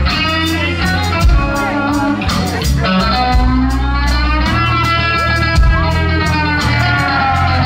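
Live blues band playing: electric guitar holding long, bent notes over bass guitar and drums.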